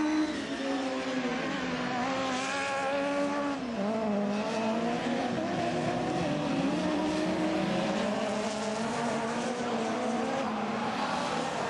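Autocross race car engines running hard, their pitch repeatedly climbing and dropping as the cars accelerate, shift and lift off; at times more than one engine is heard at once.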